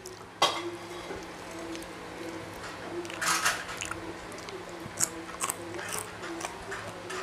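Eating sounds at a table: a sharp clink of cutlery on a plate about half a second in, a short louder scrape or crunch about three seconds in, and a few light clicks near the end, over a steady low hum.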